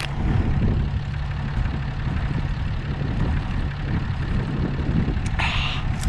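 Truck engine idling steadily close by: a constant low rumble with an even hum. A short breathy hiss comes near the end.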